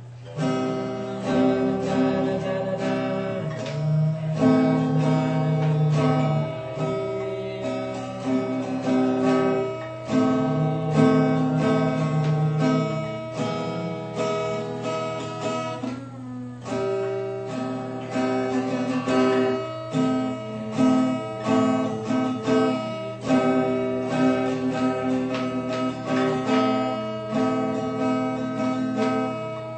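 Acoustic guitar playing a tune, a steady run of plucked notes and chords, with a short pause about halfway through, over a steady low hum.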